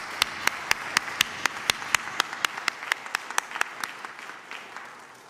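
Congregation applauding, with one person's loud, steady hand claps close by at about four a second. The close claps stop a little before the end and the applause dies away.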